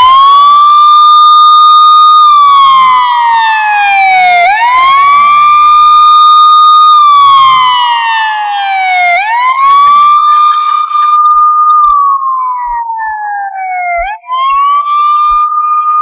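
Police siren on a slow wail: each cycle climbs quickly, holds its high note for about two seconds, then slides slowly down, repeating about every four and a half seconds.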